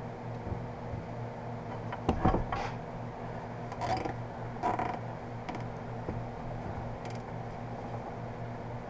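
Exhaust heat wrap being pulled tight and wound around a motorcycle exhaust pipe: a few short rustles and scrapes of the woven wrap against the metal, over a steady low hum.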